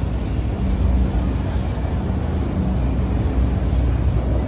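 Freight train of autorack cars rolling past: a steady low rumble of steel wheels on the rails.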